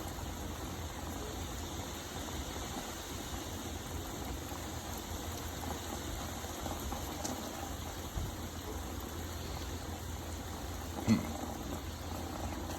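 Steady heavy rain falling, an even continuous hiss, with one short sharp knock near the end.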